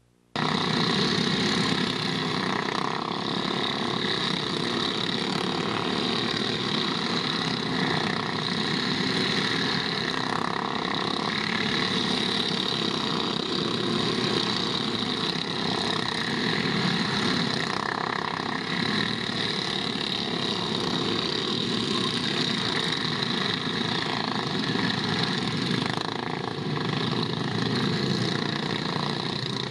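Go-kart engines running steadily.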